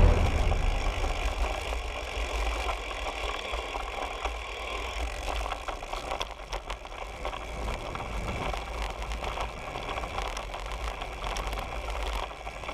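Wind buffeting the camera's microphone on a moving road bike, a steady low rumble, with tyre noise on the tarmac and small rattles and clicks from the bike, a cluster of them about six seconds in.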